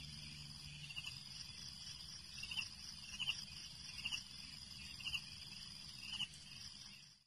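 Faint insects chirping: a steady, high, pulsing trill with shorter, lower chirps about once a second, cut off abruptly near the end.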